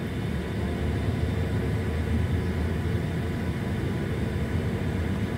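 Steady road and engine noise of a car driving along a street, as heard from inside the moving car.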